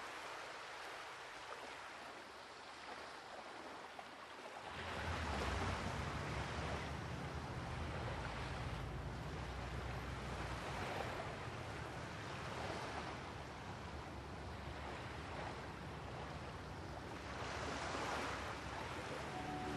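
Sea waves washing in: a steady rushing noise that swells and falls every two or three seconds. A low rumble joins about five seconds in.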